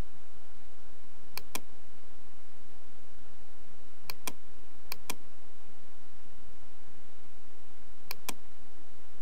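Computer mouse clicking in quick pairs, four times, over a steady low hum.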